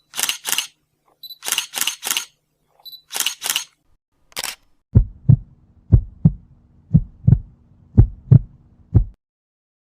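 Camera sound effects: a short high focus beep followed by two or three quick shutter clicks, three times over, then one more click. Then a heartbeat effect: paired low thumps about once a second, over a faint hum.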